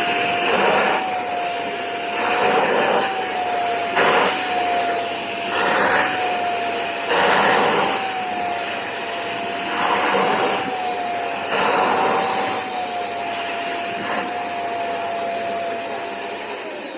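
Vacuum cleaner running with a steady whine, used to vacuum a pet's coat, its airflow swelling louder every second or two as the nozzle is worked over the fur. Switched off just before the end, the motor winding down with a falling whine.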